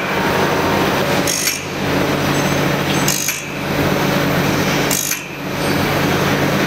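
Band saw blade sharpening machine running: its electric motor drives a grinding wheel that grinds the blade's teeth one after another in a steady cycle. Over the motor's constant hum, the sound breaks briefly and flares high about every two seconds as each tooth is done.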